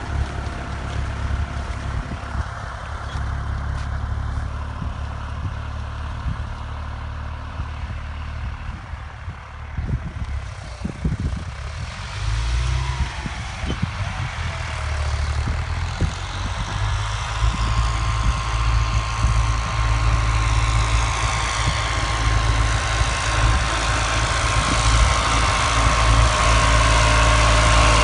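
New Holland tractor's diesel engine running steadily as it pulls a 24-disc harrow, growing louder through the second half.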